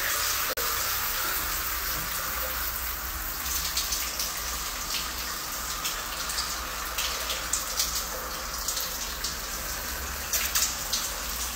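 Shower running: a steady hiss of spraying water with irregular louder spatters.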